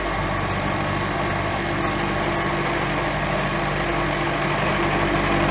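Lagun vertical milling machine running steadily, a 3/8-inch carbide end mill turning at about 600 rpm as it mills a small bracket held in a vise; a constant hum under an even cutting noise.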